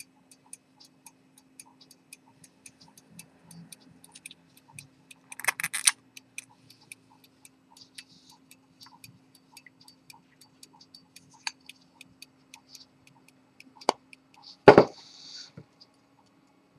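Rapid, even ticking of a 19th-century French pocket watch's cylinder escapement as the movement runs. A rustling clatter comes about five and a half seconds in. Near the end there is a sharp knock and then a louder thump, the loudest sounds, over a faint steady hum.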